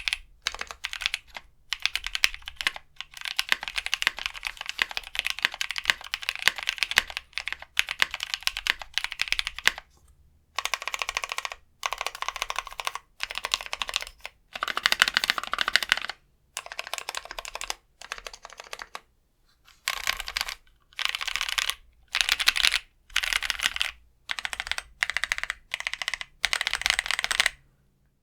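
Typing on a 60% mechanical keyboard with GMK keycaps over lubed Novelkeys Cream linear switches on an aluminum plate in an aluminum case. For about the first ten seconds the keystrokes run continuously, then they come in short runs of about a second separated by brief pauses.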